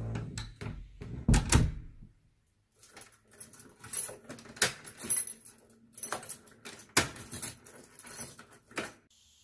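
A few heavy clunks from a door handle and lock, then a bunch of keys jingling and clicking as a key is worked and turned in the door's lock.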